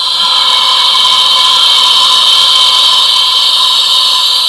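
Compressed air rushing through the nozzle of a P.A. Hilton F780 nozzle performance test unit: a loud, steady high hiss with a faint whistling tone in it. The chamber pressure control valve has been closed to hold the back pressure at 100, with the supply at 600.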